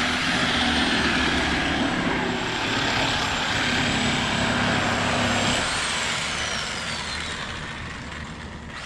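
Power saw running with a high whine and a rushing noise, released about six seconds in, its whine falling as the blade winds down.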